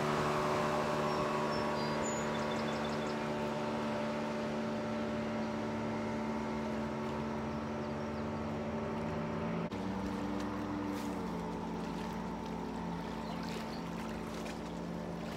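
Motorboat engine running out on the lake, a steady drone that slowly gets quieter, with its pitch shifting about ten seconds in.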